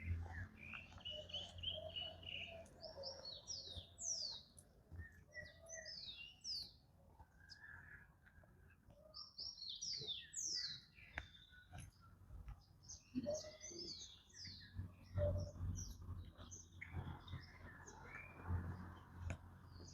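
Birds singing: bursts of quick, high notes that sweep downward in pitch, repeated every few seconds, with a lower warbling phrase now and then.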